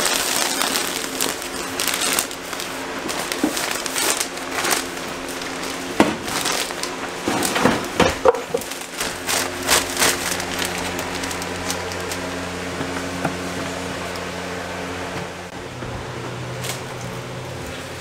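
Kraft-paper facing on R-15 fiberglass insulation batts crinkling and rustling as the batts are handled and pressed into the wall studs. There are sharp snaps and knocks among it, thickest about six to ten seconds in.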